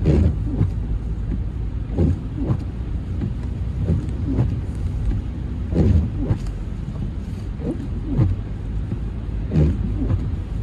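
Vehicle driving slowly over an icy, slushy road, with a steady low rumble of engine and tyres and irregular low thumps every second or two.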